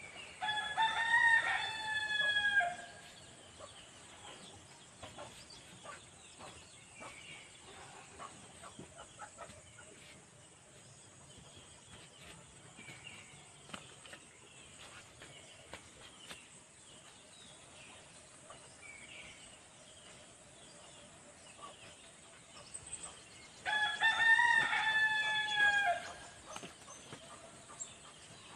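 Rooster crowing twice, about twenty seconds apart, each crow lasting about two seconds.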